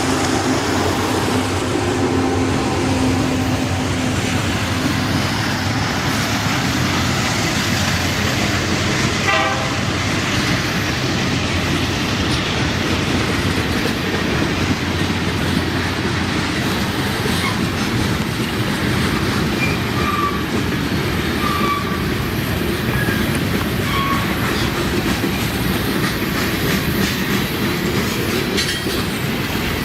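Freight train cars rolling past steadily, with wheels clicking over the rail joints and a few short high squeals from the wheels midway through.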